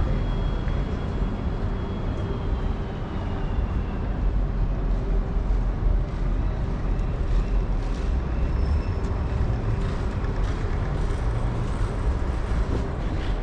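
Steady street traffic noise: the continuous low rumble of vehicles passing on a city street.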